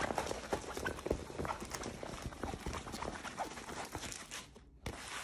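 Crinkling, rustling and irregular tapping from a large rolled diamond painting canvas being handled and unrolled, breaking off briefly near the end.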